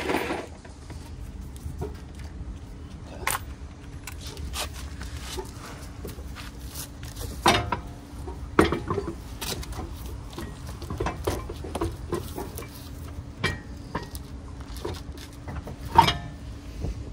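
Irregular metallic clinks and knocks of a car wheel being fitted back onto the hub and its lug nuts handled, with a few louder clunks.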